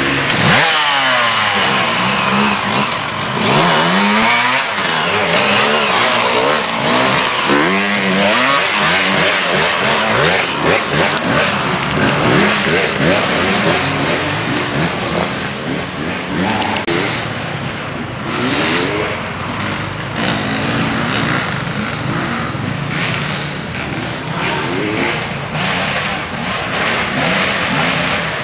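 Off-road dirt bike engines revving hard and dropping back again and again, the pitch rising and falling with each twist of the throttle, at times more than one bike at once.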